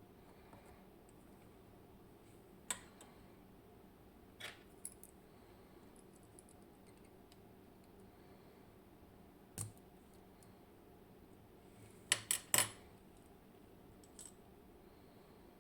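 Scattered small metallic clicks and taps of a dimple lock's parts and tools being handled while the lock is disassembled, with a quick run of three clicks about twelve seconds in.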